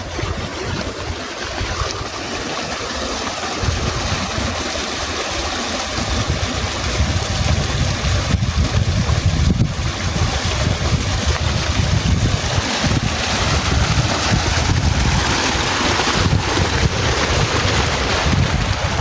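Wind buffeting the microphone in uneven low rumbles over a steady rushing hiss, getting louder about a third of the way in.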